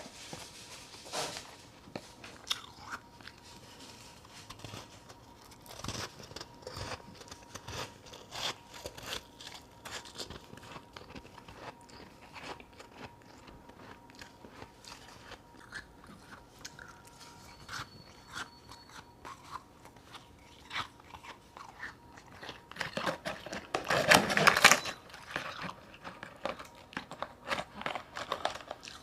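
Close-up chewing and crunching of chunks of powdery freezer-frost ice, with irregular crisp crunches throughout. There is a louder, dense burst of crunching for about two seconds near the end.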